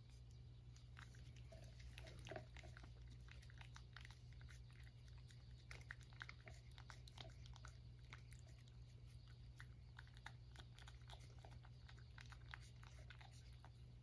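A cat licking Churu paste treat from a shallow ceramic dish: faint, irregular wet lapping clicks.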